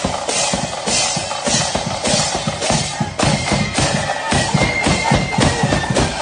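Marching flute band playing: bass drum and snare drums beating a steady march, with thin high flute notes coming in about halfway through.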